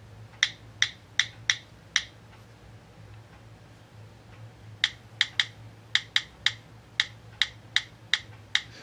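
Key-press clicks of an iPhone-style on-screen keyboard, played through a Samsung Galaxy S2's speaker as keys are tapped: five clicks over about two seconds, a pause, then a quicker run of about a dozen clicks. A faint low hum runs underneath.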